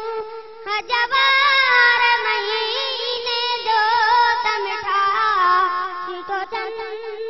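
A boy singing a Sindhi naat, a devotional song in praise of the Prophet, solo. His voice holds long, wavering, ornamented notes, with a short break for breath just under a second in.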